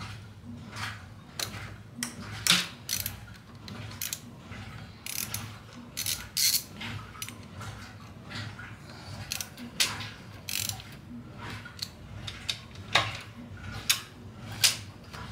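Ratchet wrench clicking in irregular runs and metal clinking as 10 mm bolts on a motorcycle's front sprocket retaining plate are worked loose, with a few louder metallic clanks.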